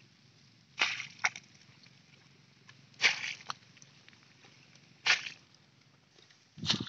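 Short wet splashes and squelches of hands and a scoop working in shallow muddy water while groping for fish, about five bursts a second or two apart, the last with a dull thump.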